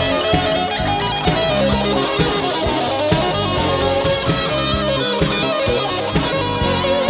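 Background music led by electric guitar, with a steady beat.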